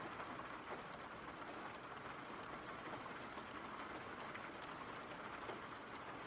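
Soft, steady rain falling: an even hiss with a few faint drop ticks.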